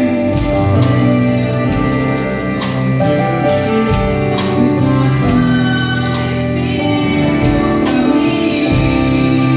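Brazilian gospel pop song playing: a full band with guitar and a steady drum beat, with singing over it.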